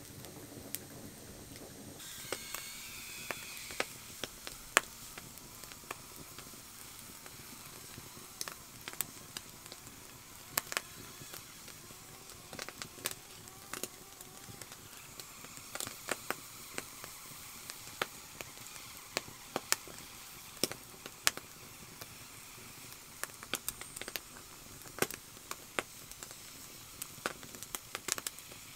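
Wood campfire crackling with many irregular sharp pops over a faint hiss, a green bamboo tube roasting on stones over it. A brief thin whistle comes about two seconds in.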